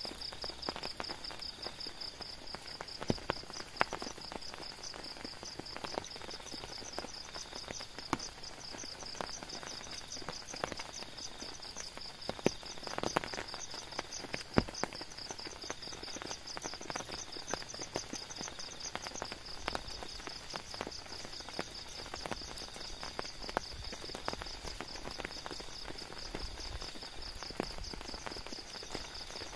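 An insect trilling steadily in rapid high-pitched pulses, over a haze of rain with scattered drips and taps.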